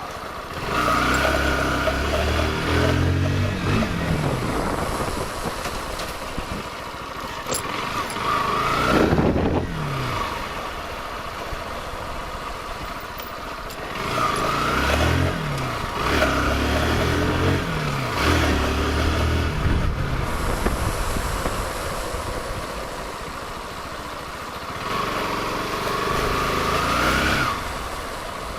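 Kawasaki motorcycle engine under way, accelerating in a few bursts, its pitch climbing and dropping back with each gear change, over a steady rush of wind and road noise.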